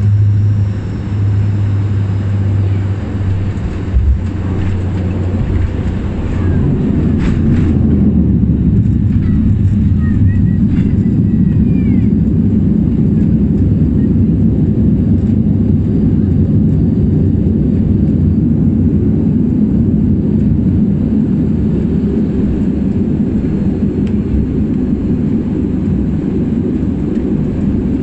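Dash 8 Q400 turboprop cabin noise: a steady low propeller drone. There is a thump about four seconds in, and a heavier, louder rumble builds from about seven seconds and holds steady.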